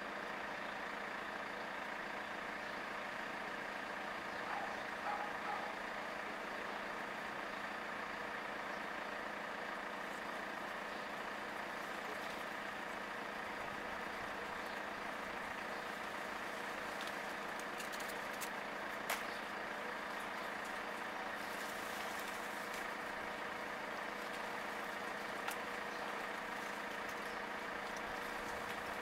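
A steady mechanical hum like an idling engine, holding one pitch throughout, with two brief sharp clicks in the second half.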